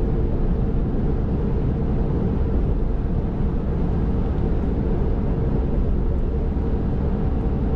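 Steady road noise inside the cab of a 2022 RAM 2500 AEV Prospector XL at about 70 mph on 40-inch Toyo Open Country mud-terrain tires: a low, even rumble with a faint steady hum over it, the tires noticeably loud.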